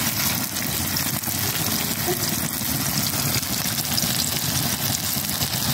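Chicken kabab patties of minced chicken and onion sizzling in hot oil on a blackened flat pan, a steady dense crackle.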